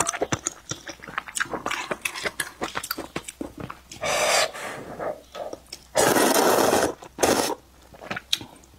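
Close-miked eating: chewing with wet mouth clicks and lip smacks, then slurps of thin noodles from a spicy soup. There is a short slurp about four seconds in, a long loud one about two-thirds of the way through, and a brief one just after.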